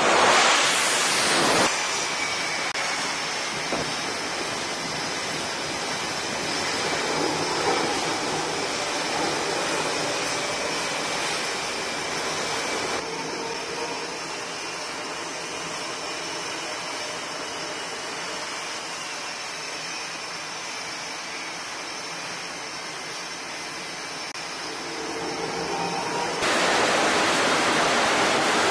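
F/A-18 Super Hornet jet engines, twin turbofans, making a steady jet noise with a thin high whine. It starts with a loud rush as a jet comes down onto the deck to land. The sound jumps abruptly in level and tone a few times, and is loudest again near the end.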